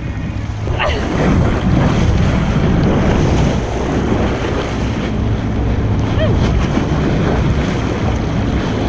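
Wind buffeting the microphone over water sloshing and splashing against the boat's side, where a hooked sailfish thrashes at the surface. It gets louder about a second in.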